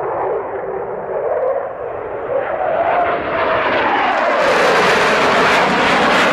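A steady rushing roar like an aircraft passing, building in loudness, its pitch wavering up and then down, and growing brighter about four seconds in.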